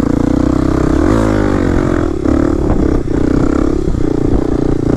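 Kawasaki KLX300 dirt bike's single-cylinder four-stroke engine running under the rider. It revs up about a second in, then the throttle is opened and closed repeatedly, so the engine note breaks off and picks up again several times.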